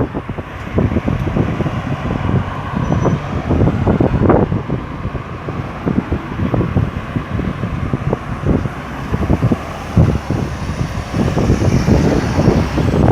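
Busy road traffic at a roundabout: cars and other vehicles driving past continuously, a steady mix of engine and tyre noise with passing vehicles swelling in and out.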